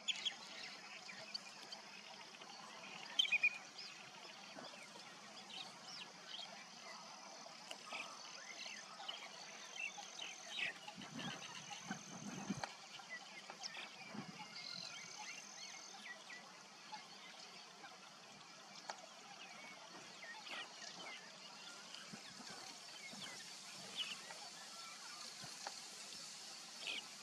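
Nutria chewing water plants: soft, irregular crunching clicks, faint against outdoor background noise with a thin, steady high-pitched tone. A short, sharp chirp about three seconds in is the loudest sound.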